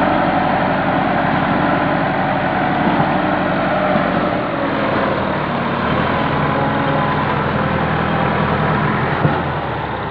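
Massey Ferguson 375 tractor's diesel engine running loud and steady under heavy load, straining to move a fully loaded sugarcane trolley while the rear wheel spins and digs into the soft field soil. The engine eases off slightly near the end.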